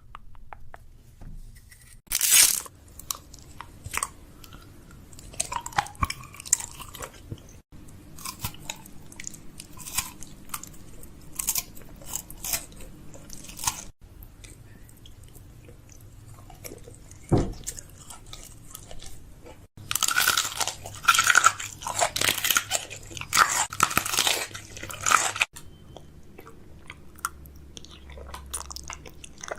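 Close-miked crunching and crackling with scattered sharp clicks, most of it in a dense run about twenty seconds in.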